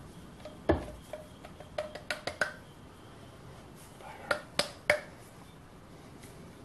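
Metal pipe mould holding a freshly cast aluminium bar knocked against a steel bench vise: sharp metallic knocks with a short ring. There is one loud knock, a quick run of about four around two seconds in, and three more near the end, as the caster tries to free a casting that is stuck tighter than usual.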